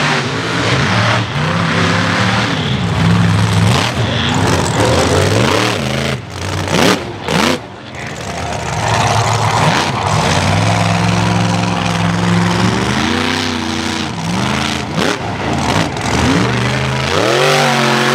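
Mega mud truck's engine revving hard, its pitch climbing and falling again and again as the throttle is worked. The sound cuts out briefly a few times about a third of the way in.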